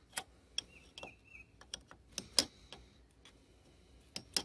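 Irregular metal clicks and taps of a hand wrench working a bolt on a power steering pump mount, about a dozen sharp ticks spaced unevenly, the loudest about two seconds in.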